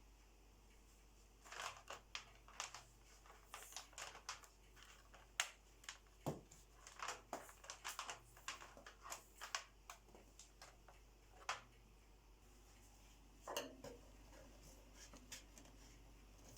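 Faint, irregular clicks, knocks and rustles of a vintage Hoover Powervac wet-and-dry vacuum cleaner and its hose or tools being handled and set up before it is switched on. One deeper knock comes about six seconds in, and the handling stops a couple of seconds before the end, over a low steady hum.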